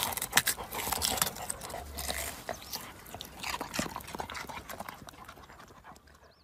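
A yellow Labrador nosing and rooting through soil and leafy plants: irregular crackles and clicks that thin out and fade near the end.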